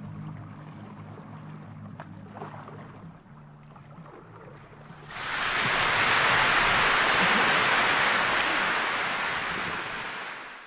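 Low sustained musical notes fade out. About five seconds in, a loud, steady wash of sea water lapping on a rocky shore comes in, fades near the end and then cuts off.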